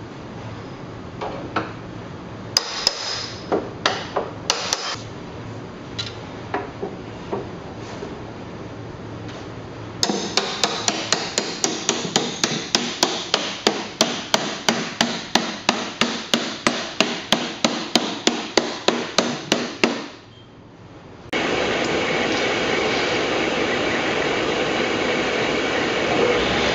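Steel hoop being hammered down onto an oak barrel with a hoop driver: scattered knocks at first, then about ten seconds of even strikes, about three a second. After a break, a steady power-tool whir as a hole is drilled in the side of a barrel.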